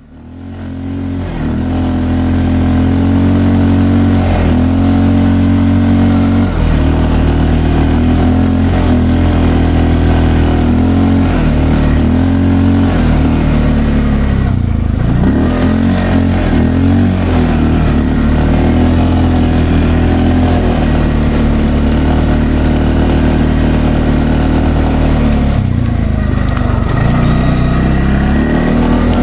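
Linhai Landforce 550L ATV's single-cylinder engine running under way, fading in at the start. The throttle opens and eases off again and again, so the engine note keeps rising and falling.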